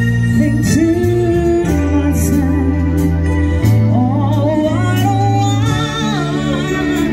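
Live band playing: a woman singing into a microphone over electric guitar, bass guitar and Korg keyboard, the bass holding long steady notes under her wavering melody.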